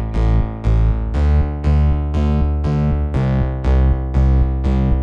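Background music with evenly repeated keyboard-like notes, about three a second, over a steady bass.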